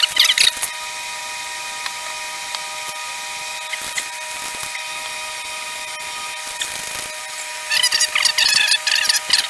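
A small electric motor whines steadily, with bursts of clattering just at the start and again for about a second and a half near the end.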